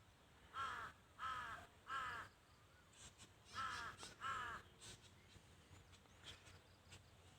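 A crow cawing: three caws in quick succession, a pause of over a second, then two more.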